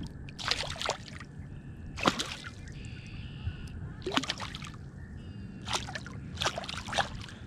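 A crappie thrashing at the water's surface beside a kayak as it is landed by hand: a run of about six short, sharp splashes.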